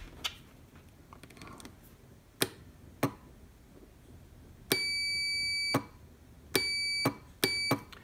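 Digital multimeter's continuity beeper sounding three times, a steady high beep of about a second and then two shorter ones, as the 200A relay's contacts close across its probes when 12V reaches the coil. Two sharp clicks come a couple of seconds before the beeps.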